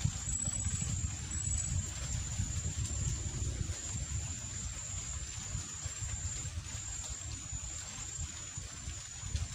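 Wind buffeting the microphone in an open boat on the water: an uneven low rumble, with a faint high-pitched whine above it.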